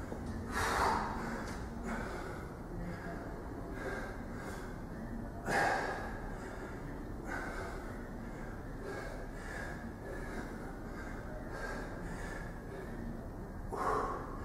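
A man breathing hard and fast while doing pull-ups: short, forceful puffs of breath about once a second, with louder gasps about a second in, midway and near the end.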